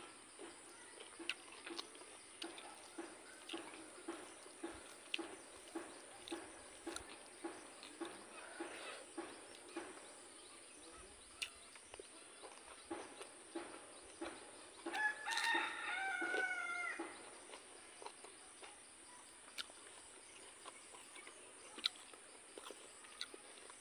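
Soft, even chewing, about two chews a second, through the first half. About fifteen seconds in, a rooster crows once for about two seconds, the loudest sound.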